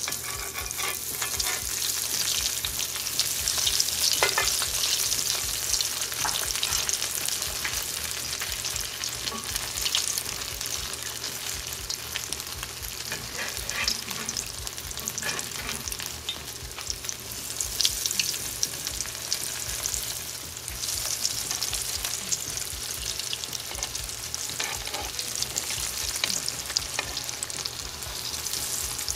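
Cornflake-coated avocado slices frying in shallow canola oil in a cast-iron skillet: a steady crackling sizzle as slice after slice is lowered into the hot oil.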